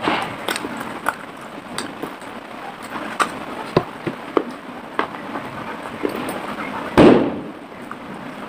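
Close-miked crunching and crackling of a clay pot being bitten and chewed, with many sharp cracks and one louder crunch about seven seconds in.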